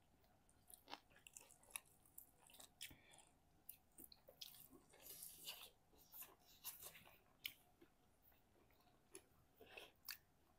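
Faint chewing and biting of food: scattered soft clicks, crackles and mouth smacks at an uneven pace.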